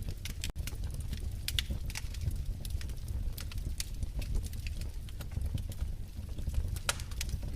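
Wood fire crackling in a fireplace: irregular sharp pops and snaps from the burning logs over a steady low rumble of the flames.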